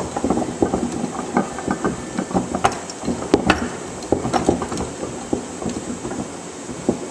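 Carbon-steel jaw being taken off a mechanics vise: a steady run of small metal clicks and rattles, with a few sharper metal clinks about two and a half and three and a half seconds in.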